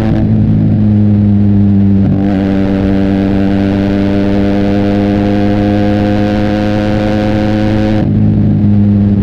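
Benelli TNT 300 parallel-twin running through an Austin Racing aftermarket exhaust at a steady engine speed while riding. Its note changes briefly about two seconds in and again near the end, where it turns duller.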